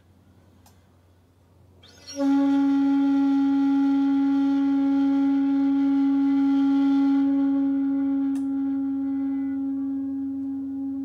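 Shakuhachi bamboo flute blown with one long, steady held note that starts about two seconds in. Airy breath noise rides over the tone and thins out after a few seconds.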